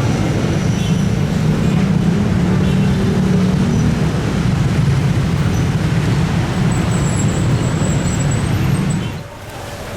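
A long train passing close by: a loud, steady rumble of wagons rolling over the rails, which drops away abruptly about nine seconds in.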